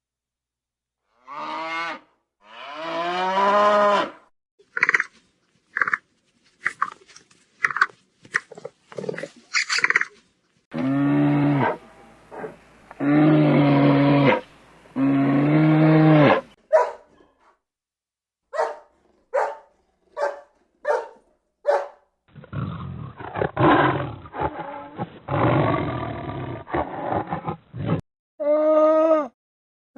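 A run of different animal calls one after another: pitched calls, a string of short chirps, three long low calls, and a long rough, growling call a few seconds before the end.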